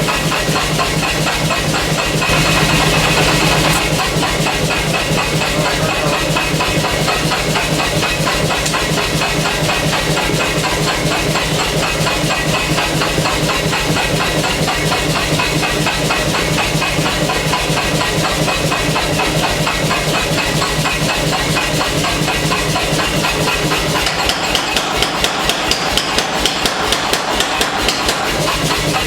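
Pneumatic air hammer running continuously, striking hot knife steel in a rapid, even rhythm over a steady hiss. Near the end the blows come more distinctly spaced.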